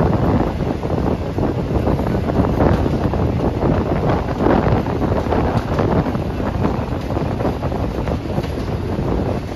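Moving passenger train: steady running rumble with wind buffeting the microphone.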